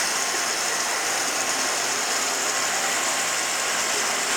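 Citizen Type E32 Swiss-type CNC turning center running its cycle: a steady, even mechanical hiss.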